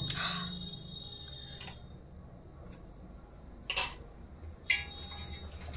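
A few separate sharp clicks from a drinking glass as lemon water is drunk from it, the two loudest about two thirds of the way in, over a low steady hum.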